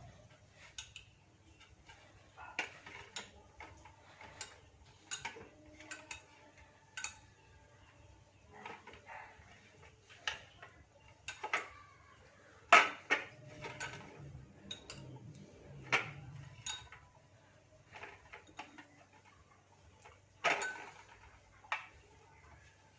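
Kitchen utensils and dishware being handled: irregular clinks and knocks, one at a time, with louder clinks about halfway through and again near the end.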